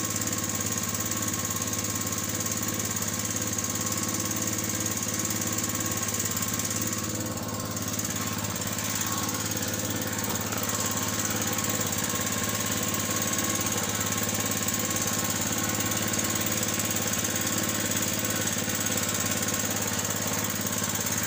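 Small outrigger fishing boat's engine running steadily at a constant pitch.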